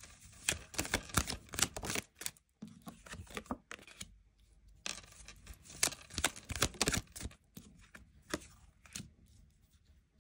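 Tarot cards being shuffled by hand: three runs of quick papery clicking and riffling, each one to two seconds long with short pauses between, and a brief last flurry near the end.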